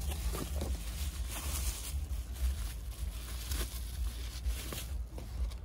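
Plastic bubble wrap and cardboard packaging crinkling and rustling as they are handled and pulled open, with many short irregular crackles over a low steady rumble.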